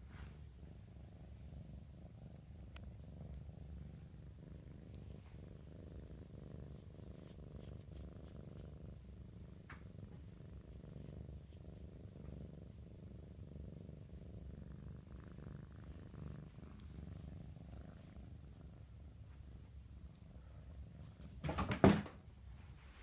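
Kitten purring steadily, close to the microphone, while being stroked. Near the end comes a brief, much louder rubbing bump as its fur presses against the microphone.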